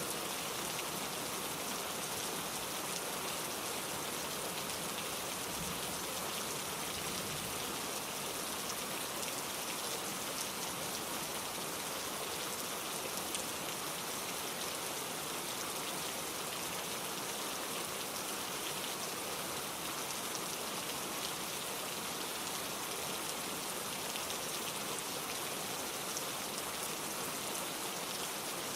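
Steady rainfall: an even hiss of falling drops, unchanging throughout.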